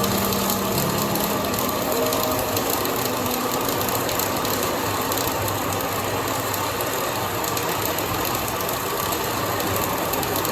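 Flux-cored arc welding: the arc gives a steady, dense crackle without a break.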